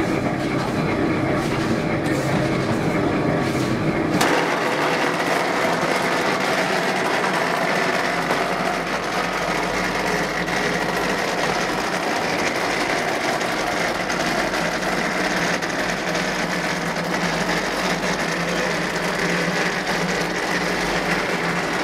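Automatic wall rendering machine running steadily, its motor-driven plastering carriage climbing the mast while it presses mortar onto the wall. About four seconds in there is a sharp click, after which the running sound turns brighter and hissier.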